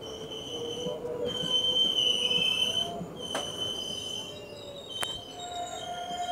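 Passenger coaches of an arriving Indian Railways express rolling past at low speed, their wheels and brakes giving a high-pitched squeal that comes and goes as the train slows. Two sharp knocks come about three and a half and five seconds in.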